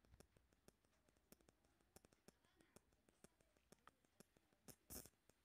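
Near silence: room tone with faint scattered clicks, one a little louder about five seconds in.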